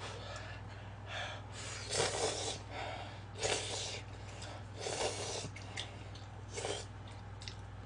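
A person slurping instant cup-ramen noodles off chopsticks in about five short bursts, the loudest about two seconds in, over a steady low hum.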